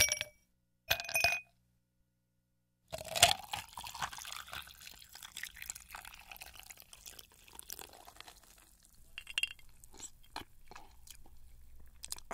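Two short glassy clinks, then a long irregular crackling, liquid-like sound with many scattered clicks.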